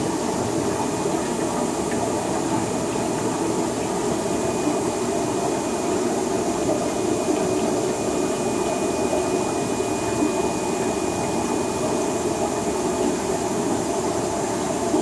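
Steady, unbroken rushing hum of aquarium filtration and water flow, with a faint thin high tone over it.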